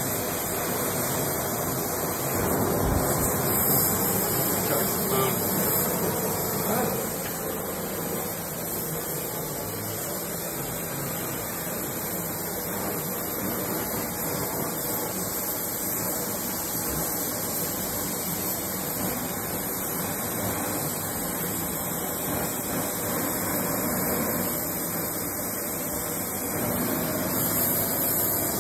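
Oxy-fuel rosebud heating torch flame hissing steadily while it heats square tubing for bending.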